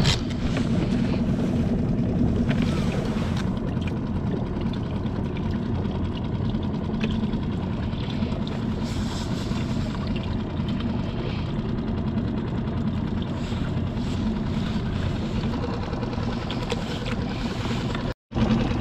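Small Mercury outboard motor idling steadily on a skiff.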